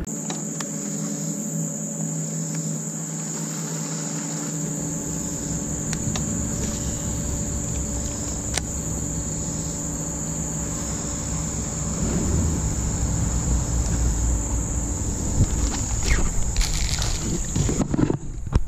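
Steady, high-pitched insect chorus shrilling without a break, over a faint low steady hum. It cuts off shortly before the end, where a few clicks and knocks follow.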